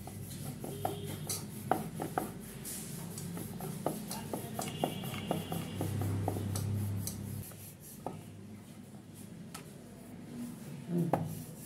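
Wooden rolling pin rolling ruti dough on a floured wooden board, a rubbing sound with irregular light knocks and clicks of wood on wood. It gets quieter in the last few seconds.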